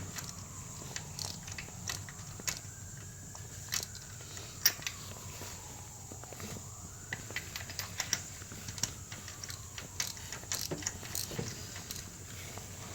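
Irregular light metallic clicks and clinks of hand tools and spark plugs being handled during a spark plug change, with a sharper click about five seconds in.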